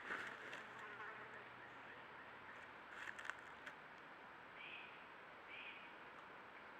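Wild turkey flapping its wings in a brief rush at the start, with a fly buzzing faintly over the first few seconds. A few light clicks follow, then two short high chirps near the middle.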